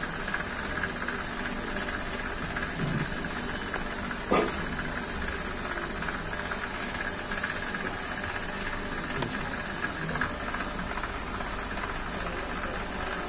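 Steady machine-like hum in the background, with a single sharp tap about four seconds in and a fainter one later.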